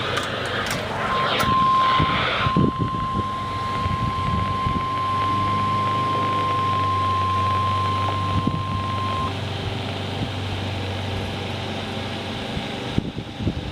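NOAA Weather Radio 1050 Hz warning alarm tone: one steady high-pitched tone starting about a second in and lasting about eight seconds, over a steady low hum. The tone signals that a weather warning broadcast is about to follow.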